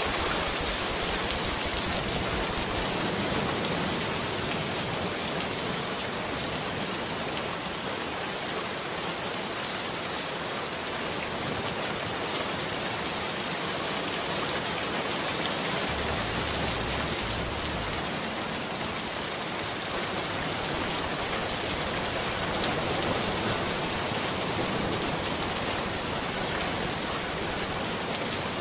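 Steady rain ambience, an even hiss of rainfall, with a brief low rumble about halfway through.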